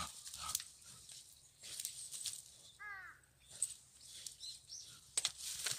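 Faint crackling and rustling of dry leaves and brush, as an animal moves through undergrowth, with scattered short clicks. About three seconds in comes one short call, falling in pitch.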